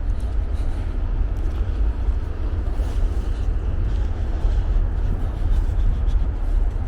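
Wind buffeting the microphone outdoors in a snowstorm: a steady low rumble with no break.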